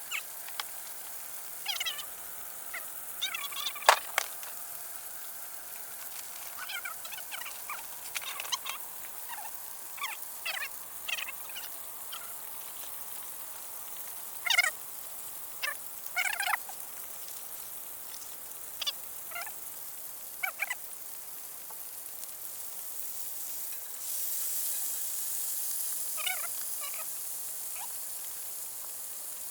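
Scattered short chirping calls from small animals, some single and some in quick clusters. Under them runs a steady high hiss that grows louder for a few seconds about three-quarters of the way through.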